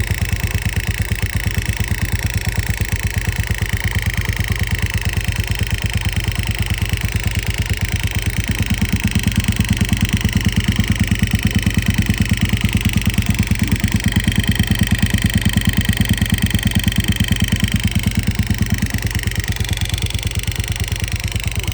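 1987 Honda TRX350 FourTrax engine idling with a steady, even beat, a little louder through the middle stretch.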